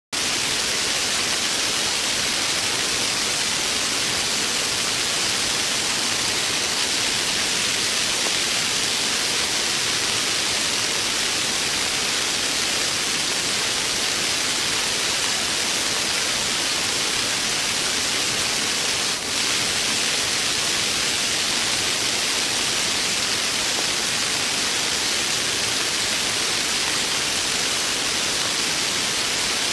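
Heavy rain falling, a dense steady hiss with one brief drop about two-thirds of the way through.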